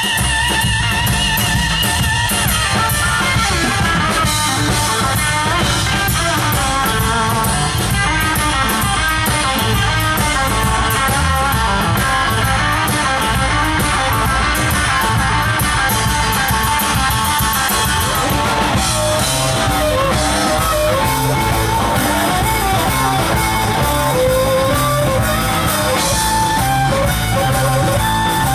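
Live blues-rock band playing an instrumental stretch without vocals: electric guitars and a drum kit, with a harmonica played into the vocal microphone.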